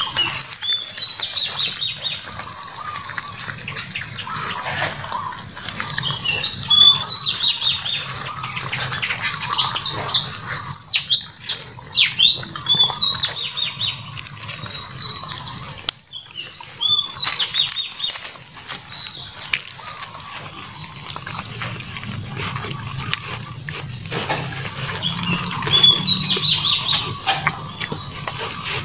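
Puppies eating cooked rice from a metal tray: irregular chewing, smacking and snuffling, with clicks of teeth and muzzles on the tray. Short bursts of high-pitched chirps come and go several times.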